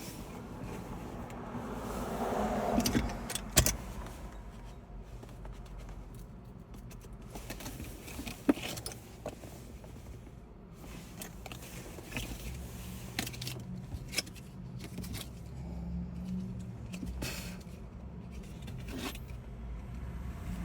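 Small hard objects clicking and scraping as they are handled, with a low steady rumble underneath.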